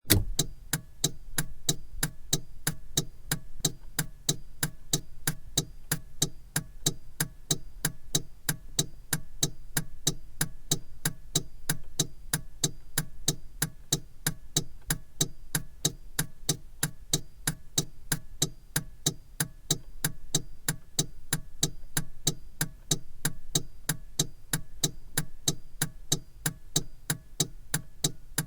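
Car turn-signal indicator ticking in a steady, even rhythm, over a low constant hum.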